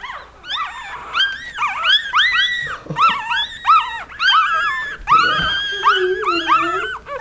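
Newborn Cavalier King Charles Spaniel puppies squeaking and whimpering: short high-pitched cries several a second, overlapping from more than one pup.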